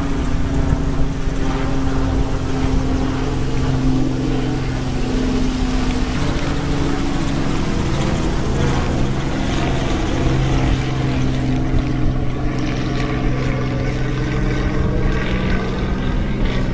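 A steady, motor-like drone with a low hum held on one pitch throughout, over a rushing noise.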